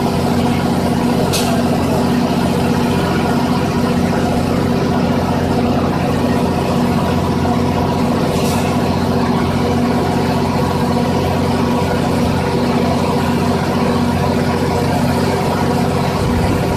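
An engine idling steadily: a constant low hum that does not change, with a couple of brief faint clicks about a second and a half in and again about eight seconds in.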